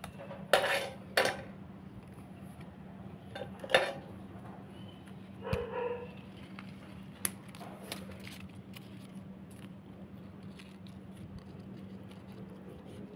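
Pruning shears snipping and leaves rustling as a citrus tree is trimmed: a few short snips and rustles in the first half, then only light clicks. A faint steady hum runs underneath.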